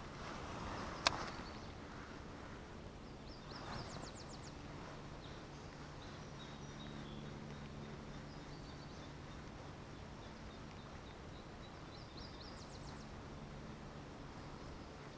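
Quiet outdoor ambience: a small bird chirps in two short bursts, a few seconds in and again near the end, over a faint steady low hum. One sharp click about a second in.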